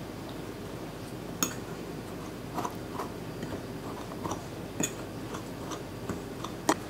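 A metal fork stirring a dry mix of flour and sugar in a ceramic plate, its tines scraping and tapping against the dish in scattered light clicks over a low steady hum.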